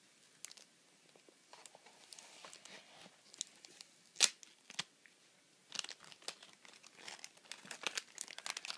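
Paper wrapping on a bar of handmade soap being crinkled and torn open by hand, in scattered crackles with one sharp snap about four seconds in and busier crinkling over the last three seconds.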